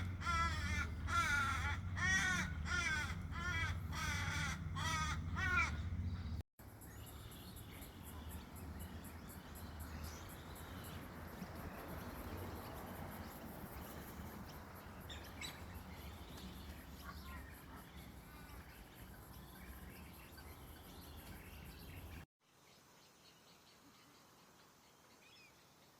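A bird gives a run of loud, harsh calls about twice a second for the first six seconds. After a sudden cut, quieter outdoor background with scattered faint bird chirps follows. Another cut near the end drops it to a soft hush.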